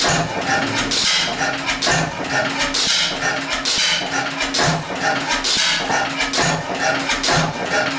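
1911 Deutz E3 stationary gas engine running slowly, with a loud exhaust puff about once a second and mechanical clatter between the beats.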